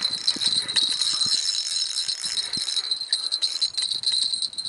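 Spinning reel's drag clicking in a fast buzzing ratchet as a hooked carp pulls line against the bent rod.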